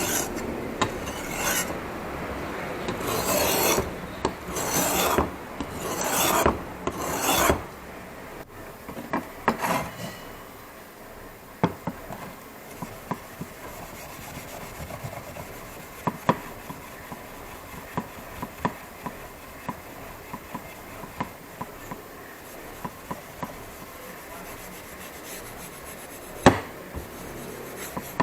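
Hand filing or abrading on the meat cleaver: about six long scraping strokes in the first eight seconds. Scattered light clicks and taps follow, with one sharper knock near the end.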